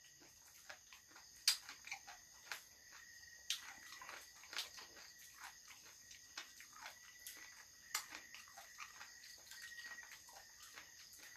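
Faint, irregular small clicks and mouth sounds of people chewing and eating with their hands, over a steady high chirring of insects.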